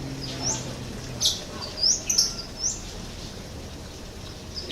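Wild birds chirping: a string of short, high, rising notes, with one harsher scratchy call about a second in. A faint low hum fades out at about the same moment.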